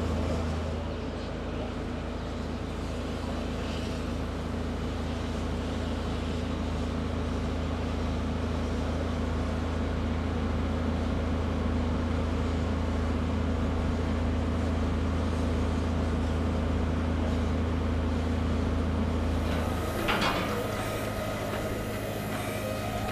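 A steam-hauled heritage passenger train standing at a station, with a steady low machine hum. About 20 seconds in the hum changes, a short sharp clank is heard, and higher steady tones come in.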